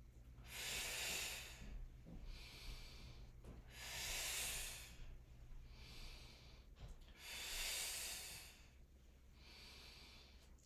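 A woman breathing in and out through a floor core exercise: slow, even breaths, a louder one about every three and a half seconds with a softer one between.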